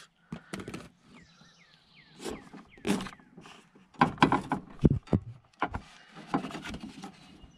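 A plastic steering-shaft bushing being worked by hand down a lawn tractor's steering shaft: irregular light clicks and knocks, the loudest about three and five seconds in.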